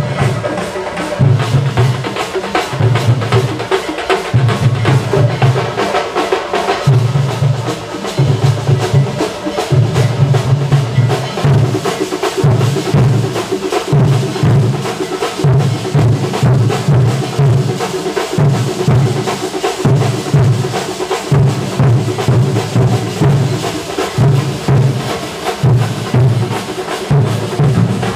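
Festival percussion ensemble drumming loudly and continuously. Deep drum strokes come in quick repeated groups, with sharp stick hits over them.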